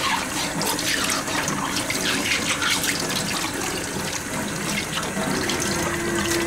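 Water running from a tap and splashing over hands being washed and rubbed together under the stream.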